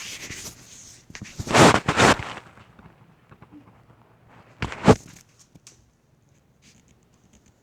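Two loud bursts of rustling, bumping handling noise close to the microphone, about three seconds apart, the second short and sharp.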